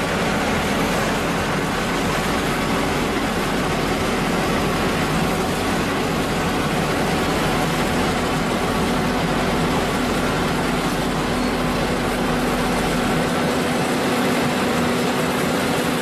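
Diesel engines of an asphalt paving train, a Vögele MT 3000 Offset material transfer vehicle feeding a paver, running steadily under load: a dense, even machine noise with a few steady hums. The deepest rumble drops away about thirteen seconds in.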